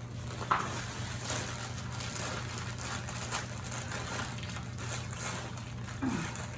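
Plastic rustling and crinkling in short scattered bursts as it is handled, with a sharp click about half a second in.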